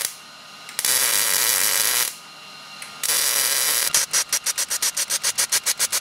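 Millermatic MIG welder arc crackling and hissing in runs of about a second with short pauses between, welding a flange back onto a radiator fan's mounting strap. From about four seconds in, the sound breaks into a fast, even train of short crackling bursts, about four or five a second.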